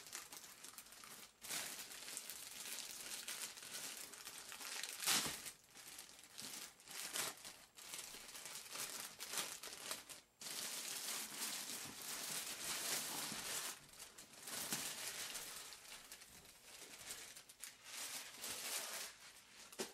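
Clear plastic bag crinkling and rustling as it is worked off a hard-shell carrying case, in irregular bursts with short lulls.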